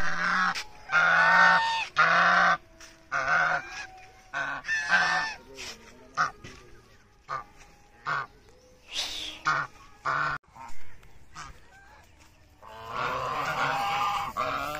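Brown Chinese geese honking: a run of loud honks in the first few seconds, then shorter, scattered calls, and a longer stretch of several birds honking together near the end.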